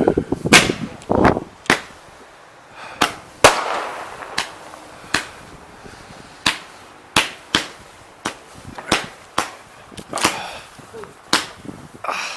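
Consumer fireworks going off: a string of about twenty sharp bangs at uneven intervals, one or two a second.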